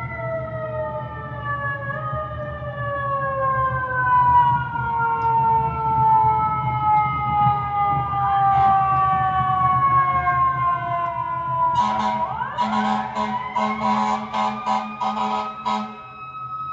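Fire truck siren: a wailing tone slowly falling in pitch, then about twelve seconds in it winds back up while a rapid pulsing sound, a few pulses a second, joins it.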